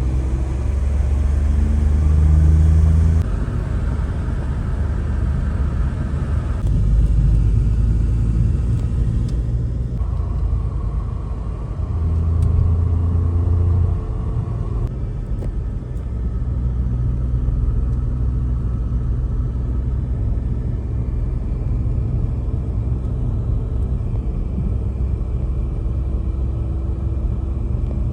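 Steady low rumble of a motor vehicle on the move, its tone shifting abruptly several times.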